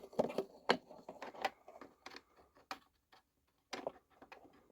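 Light, irregular clicks and taps of small plastic model pieces being handled and set down, with a few clicks close together near the end.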